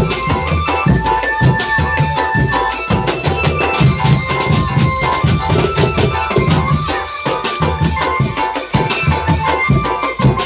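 Marching drum band playing: fast, dense drumming with a melody line carried over it.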